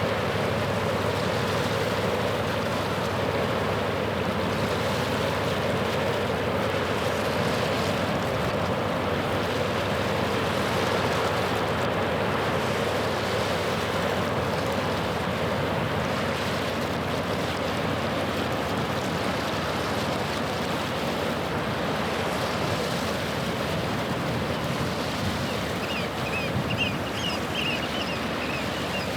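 Steady drone of a passing ship's engine over the rush of waves and wind at the shoreline. Short bird calls come in near the end.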